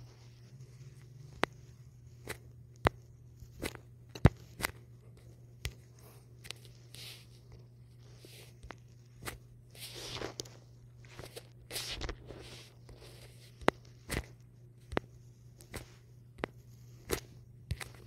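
Irregular sharp clicks of fingers tapping a smartphone's touchscreen, with a few soft rustles near the middle over a low steady hum.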